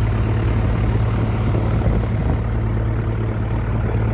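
Steady low drone of an engine running, unchanging throughout with a strong low hum.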